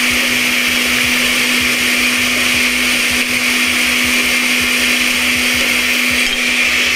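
Countertop blender running steadily, pureeing softened guajillo chiles with onion, garlic and liquid into a thick adobo sauce.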